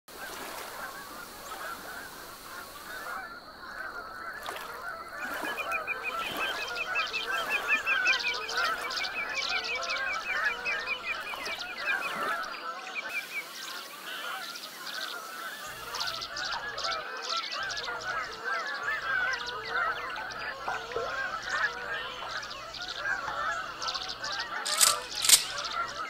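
A large flock of geese calling and honking, many overlapping voices in a continuous chorus. For several seconds a fast, higher rattling trill of another bird runs above the chorus.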